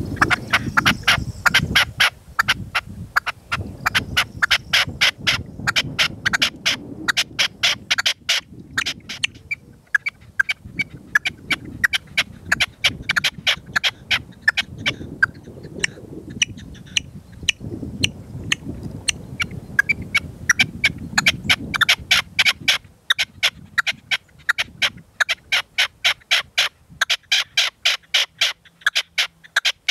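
Red-legged partridge calling in a rapid, sustained series of sharp notes, several a second, pausing briefly once. Wind gusts rumble on the microphone underneath.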